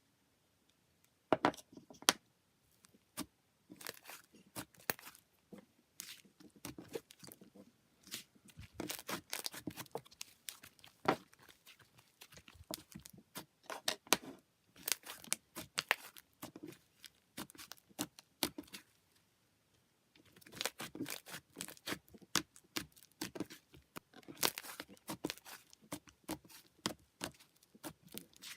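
Slime being squished, poked and stretched by hand, giving irregular crackles, pops and sticky clicks in clusters, with a short pause about two-thirds of the way through.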